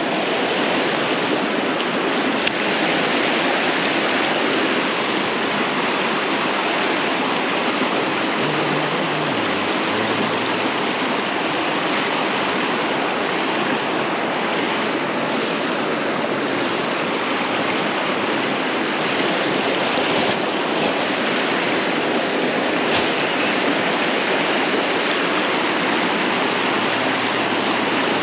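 Steady rush of a fast-flowing spate river running high after floods.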